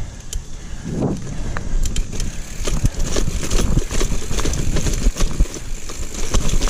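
Mountain bike rolling fast on a dirt trail: tyres rumbling, the bike clattering and rattling over roots and bumps, with wind buffeting the microphone.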